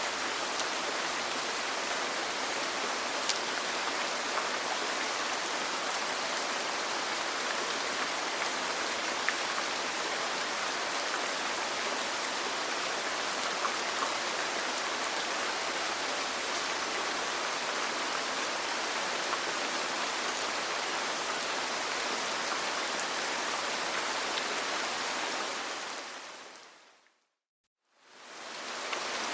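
Steady rain falling on a roof, an even hiss with scattered faint drop ticks. Near the end it fades out to silence for about a second, then fades back in.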